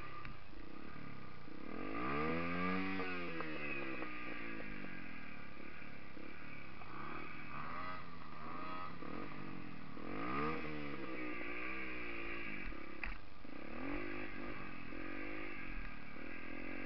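Yamaha dirt bike engine running under way, revving up and dropping back again and again as the throttle is opened and closed, with the biggest rise and fall a couple of seconds in and another about ten seconds in.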